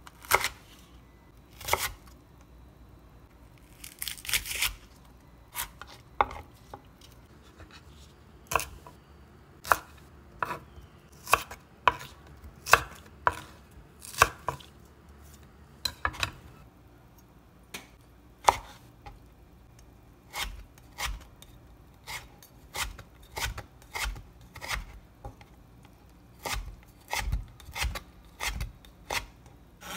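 Large kitchen knife cutting green onion into lengths and then slicing red chilies on a wooden cutting board: separate knocks of the blade on the board. They come about a second apart at first, with one longer scrape about four seconds in, then faster and more evenly, about two a second, in the later part.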